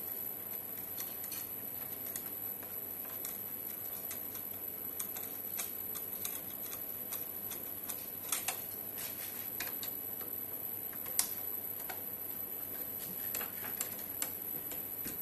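Small irregular metal clicks and ticks of a screwdriver turning the screws of the metal blank covers over the empty power-supply slots of a Cisco Catalyst 9200 switch, with a few sharper clicks in the second half.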